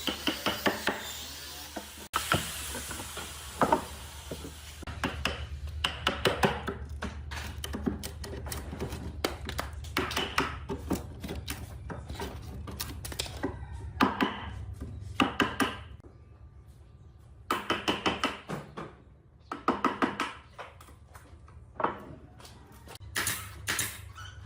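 Wood being worked by hand: short clusters of quick knocks and scrapes, several strokes at a time with pauses between, over a low steady hum.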